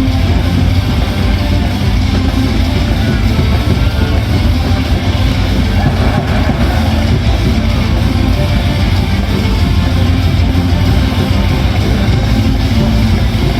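Loud rock music with electric guitar and a heavy, steady bass.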